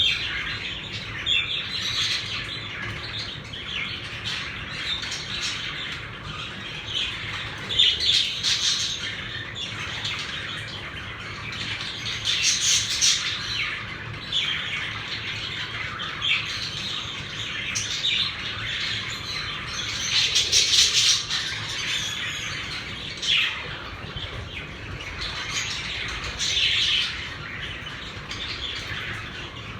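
A flock of pet budgerigars chattering and chirping without pause, with louder squawking calls breaking out several times.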